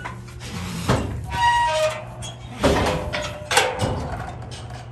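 Steel pipe cattle pen panels and gates clanging and rattling in several sharp knocks as a cow is worked through the alley, with a brief high squeal about a second and a half in.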